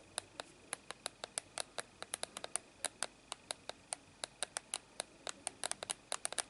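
Typing on an i8 mini wireless keyboard: a quick, irregular run of light key clicks, about five a second.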